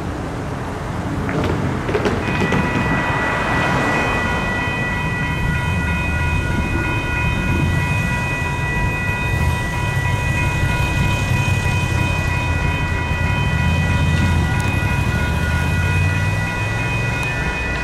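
Railroad crossing warning bells: the crossing's electronic bells (a WCH Type 1.5 and a GS Type 1 e-bell) start ringing about two seconds in as the signals activate, and keep ringing steadily over a low rumble.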